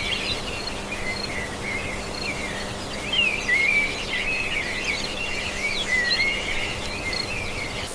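Several songbirds chirping and singing, their short rising and falling calls overlapping continuously over a soft steady background hiss with a faint low hum.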